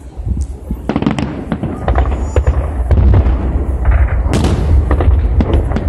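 Fireworks display going off: a rapid, irregular string of booms and crackling bursts over a continuous low rumble. It grows denser and louder about two seconds in, with the loudest bang a little past the middle.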